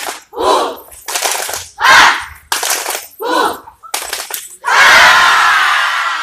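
A group of students shouting a chant in unison, one loud shout about every second, ending about five seconds in with one long drawn-out collective shout.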